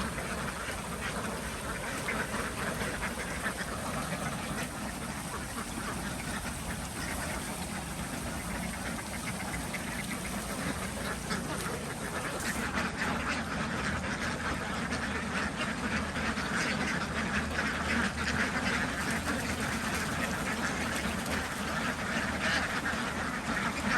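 A flock of ducks quacking continuously, many calls overlapping with no pause.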